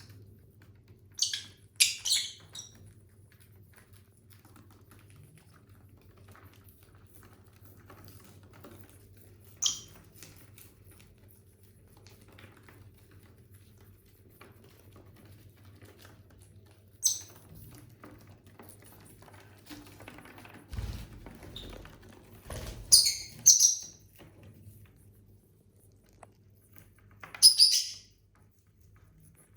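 Pet lovebirds giving short, shrill chirps every few seconds, with a quick cluster of calls a little past two-thirds of the way through and another near the end, between quiet stretches. A brief low rumble comes about two-thirds of the way in.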